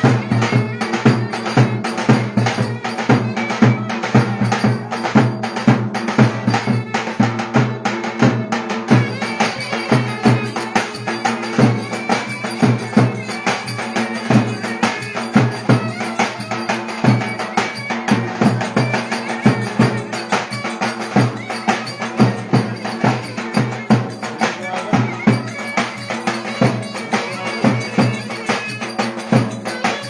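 Turkish folk dance music from a davul bass drum beating a steady, driving rhythm under a shrill reed wind instrument playing the melody.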